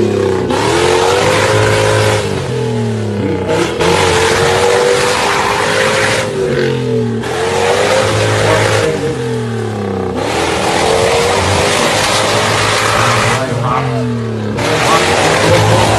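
A 4x4 SUV's engine revved hard again and again as its wheels spin through deep mud, the pitch climbing and dropping about every three to four seconds, with a steady spray of mud and tyre noise. The wheels are spinning for traction while the vehicle struggles in the rut.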